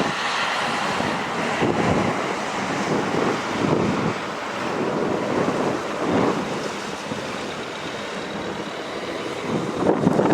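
SH-60J Seahawk helicopter's twin turboshaft engines and rotor running steadily in a hover, with a faint steady whine, while gusty wind buffets the microphone in repeated swells.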